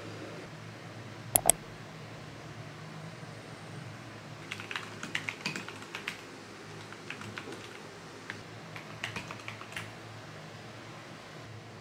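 Typing on a mechanical keyboard: short bursts of key clicks with pauses between them, over a low steady hum. Two sharp, louder clicks come about a second and a half in.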